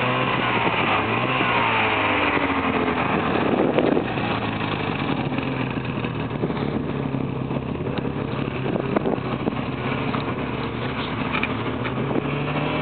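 Snowmobile engine running steadily under way: a continuous low drone holding a fairly even pitch, with the rush and rattle of the ride over it.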